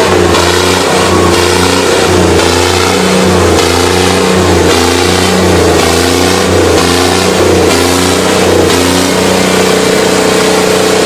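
Loud engine sound, revving up and easing off in a repeating cycle about once a second, then settling into a steady drone near the end.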